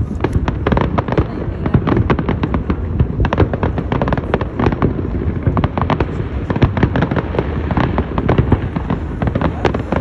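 Fireworks display: a dense, unbroken barrage of sharp bangs and crackles, many per second, over a low rumble of booms.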